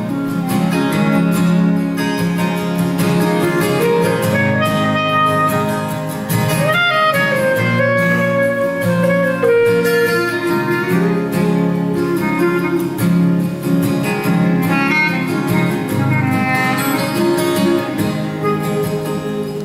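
Live band playing an instrumental break: guitar accompaniment under a melodic lead line that slides up and down in pitch, with no vocals.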